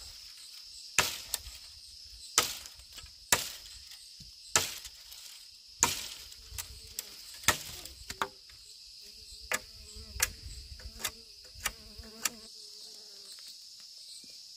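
Steady high-pitched insect buzz, with a dozen or so sharp blows of a hand tool at work, spaced irregularly about a second apart and louder in the first half.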